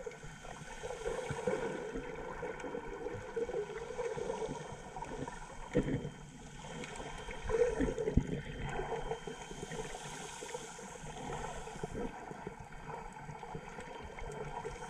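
Underwater water noise heard through an action camera's waterproof housing: muffled sloshing and gurgling as the snorkeller moves, with a few louder knocks about six and eight seconds in.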